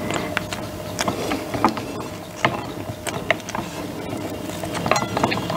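Silicone spatula pressing and scraping a soft cream-and-sponge cake filling inside a steel cake ring, with irregular light clicks and taps.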